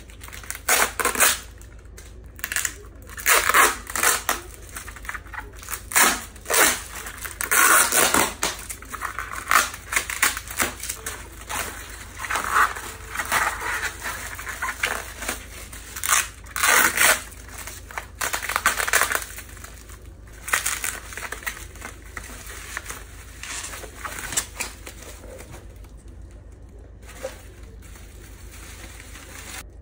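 Parcel packaging being torn open by hand: a black plastic bag, packing tape and bubble wrap ripped, pulled and crinkled in repeated bursts, going quieter in the last few seconds.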